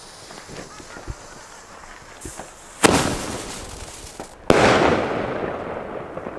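Lesli Bada Bang Bada Boom firework battery firing its pink and gold shots. After some faint crackling come two loud bangs about a second and a half apart. The second bang has a long fading tail.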